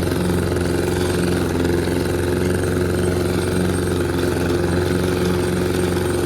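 Lawn mower engine running steadily at constant speed while mowing, a level hum with no changes in pitch.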